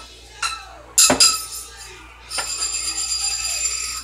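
Kitchen clatter: a sharp knock about a second in, as of a hard object set down, then a bright, jingling ring that stops abruptly.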